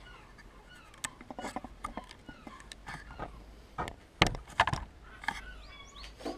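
A series of sharp clicks and knocks from the reassembled petrol lawnmower being handled, loudest in a cluster about two-thirds of the way through, with birds chirping in the background.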